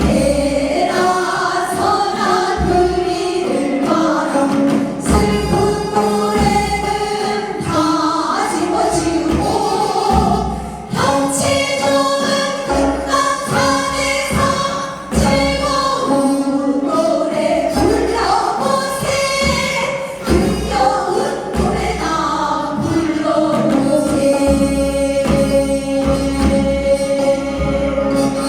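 Korean folk song (minyo) sung with instrumental accompaniment, the singing going on without a pause over a repeated low beat.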